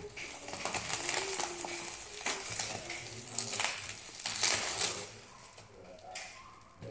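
Plastic bubble wrap crinkling and crackling as it is pulled open and off a plastic food container by hand, loudest about four and a half seconds in and quieter near the end.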